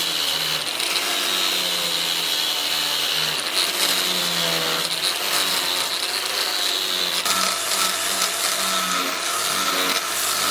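A power tool running continuously, its pitch wavering up and down as it works the steel.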